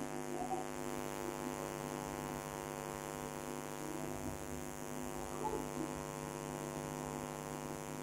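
Steady electrical mains hum with a buzzy stack of overtones, picked up in the recording.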